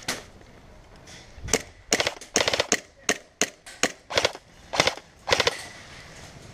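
Airsoft guns firing in a skirmish: a string of sharp, irregularly spaced shots, some in quick pairs or short bursts, mostly between about a second and a half in and five and a half seconds.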